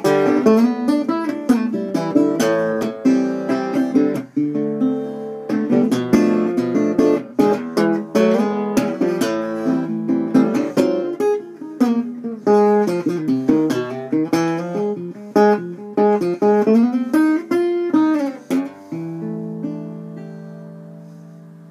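Steel-bodied resonator guitar played fingerstyle: a solo instrumental piece of picked bass notes and melody, ending about 19 seconds in on a final chord that rings and fades away.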